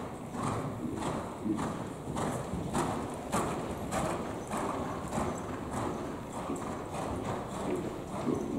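Hoofbeats of a horse trotting on the sand footing of an indoor riding arena, in a steady, even rhythm.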